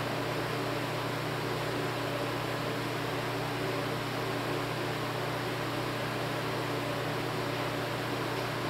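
Steady background hiss with a low hum underneath, unchanging throughout: room noise, with no distinct event.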